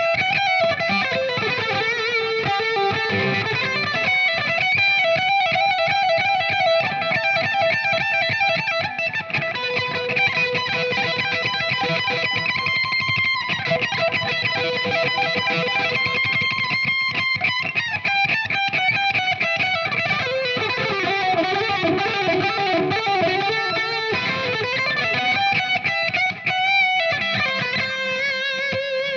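Electric guitar playing shred lead: fast runs of single notes, broken by a few held notes.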